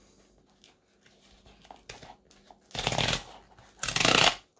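Cardboard mailer box's tear strip being ripped open in two loud pulls, about three and four seconds in, after faint handling rustles.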